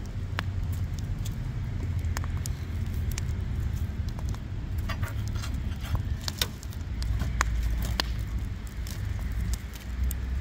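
Wood fire crackling in a fire pit: sharp, irregular pops and snaps, thickest about halfway through, over a steady low rumble.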